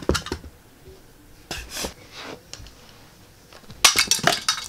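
Hard plastic toy pieces clicking and clattering: a few light knocks, then a burst of sharp clacks near the end as the plastic ball holding the Sonic figure crashes into the Burnbot figure.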